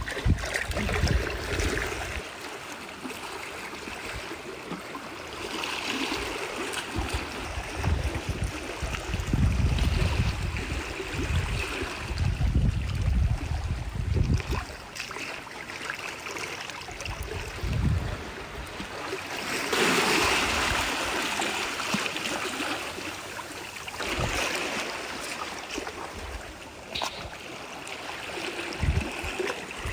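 Seashore ambience: seawater washing and trickling among the rocks, with irregular low rumbling gusts of wind on the microphone.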